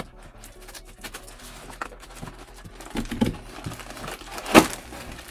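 Cardboard being pried and torn open by hand: scattered scraping and rustling, a few knocks around three seconds in, and one loud tear about four and a half seconds in.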